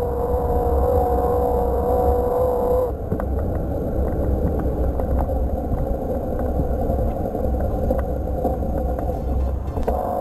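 Pegasus OPERO E8R e-bike's loud motor whining steadily under pedalling, its whine clearest for about the first three seconds and then fainter, over wind rumble on the microphone and road noise.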